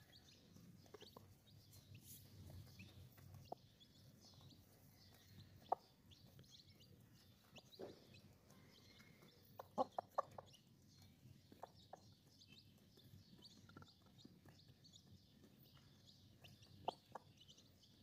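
Sparse, soft clucks from a hen feeding with her chicks, with a short run of clucks about ten seconds in; otherwise near silence. This is the clucking a hen uses while showing her chicks food.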